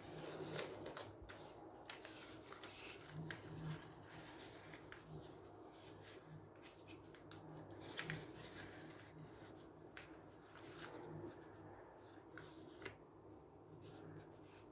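A sheet of paper rustling and crackling faintly as hands fold it and press the creases flat, in irregular short scrapes and crinkles.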